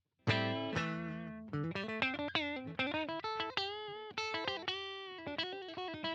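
Electric guitar, a JCraft LSX-1 fitted with humbucking pickups, playing a lead phrase of single plucked notes, some bent or slid in pitch. It comes in about a third of a second in after silence.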